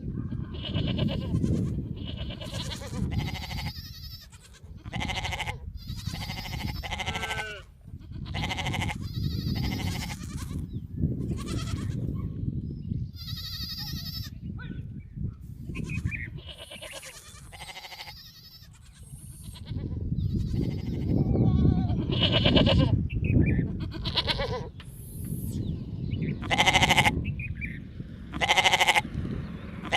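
Sheep bleating repeatedly, many short pitched calls one after another, some overlapping as from several animals, over a steady low rumble.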